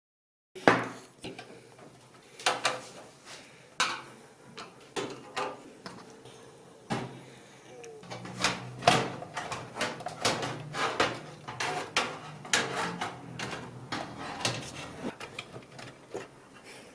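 Irregular clicks, knocks and light metallic clatter of a desktop PC's power supply unit being unscrewed and pulled out of its computer case.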